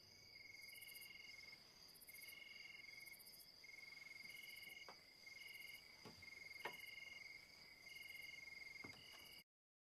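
Faint night chorus of crickets: a steady high trill with pulsing chirps repeating about once a second, and a few soft clicks. It cuts off suddenly to silence near the end.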